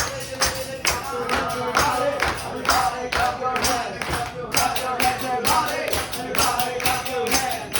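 Music with a steady percussive beat of about two sharp strikes a second under a melody.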